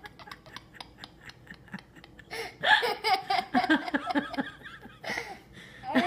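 A young child laughing: quiet for about the first two seconds, then a run of loud giggles and rapid ha-ha bursts, with a fresh burst of laughter near the end.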